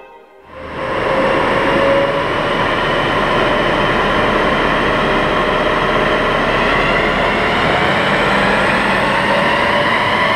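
A BMW X5 3.0d's straight-six turbodiesel running hard on a rolling-road dyno, with the spinning tyres and rollers adding their noise. It comes in within the first second and holds loud and steady, its pitch climbing slowly through the run.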